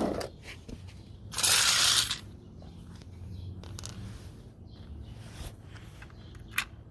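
Hand tools being handled under a car: a short scraping rustle about a second and a half in, then scattered light clicks and a sharp click near the end.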